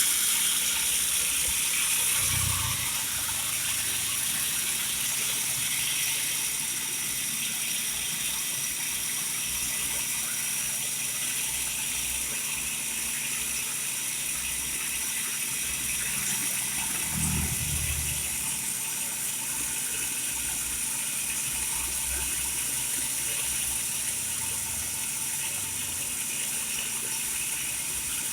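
Cotton candy machine running on test, its motor spinning the head with a steady mechanical whir and rattle, and a couple of brief low thuds.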